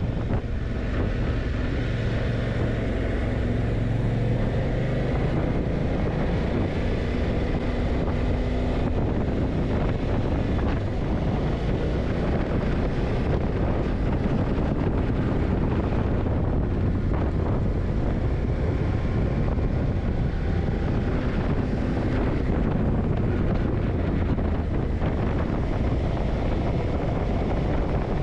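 Yamaha TDM900's parallel-twin engine running at road speed, with wind rushing over the microphone.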